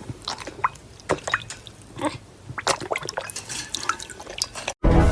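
Irregular drip-like clicks and small liquid sounds. Loud music cuts in just before the end.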